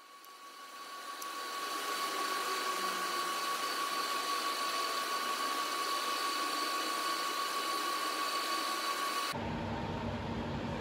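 Steady workshop machine noise, a hiss with a steady whine, fading in over the first two seconds; near the end it switches suddenly to a lower steady hum.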